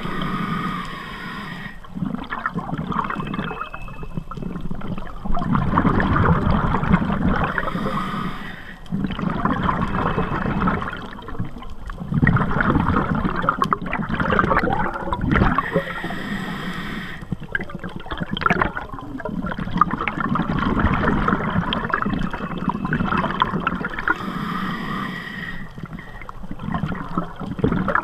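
Scuba regulator breathing, heard underwater: a rush of exhaled bubbles about every eight seconds, with gurgling and rumbling water noise in between.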